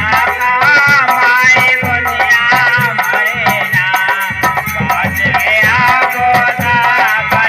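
Live devotional bhajan music: a harmonium playing the melody over a steady beat of hand percussion.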